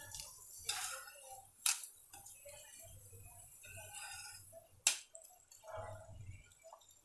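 Metal spatula clicking and scraping against a nonstick tawa while a puda is slid and flipped on it, with two sharp clicks, one about a second and a half in and one about five seconds in.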